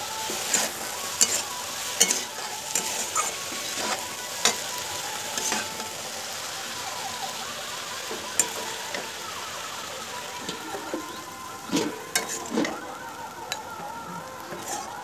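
Sliced onion and cabbage sizzling in a metal kadai while a flat metal spatula scrapes and knocks against the pan in sharp clicks, with a quieter stretch in the middle and a few louder knocks near the end.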